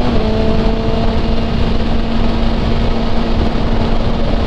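Kawasaki Ninja ZX-6R inline-four engine running at a steady cruise on the motorway, with a constant pitch after a slight dip at the start. Heavy wind and road rush lies under it.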